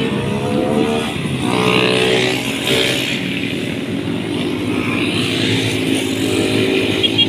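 Small motorcycle engines revving as they ride past, the engine note rising and falling as they go by.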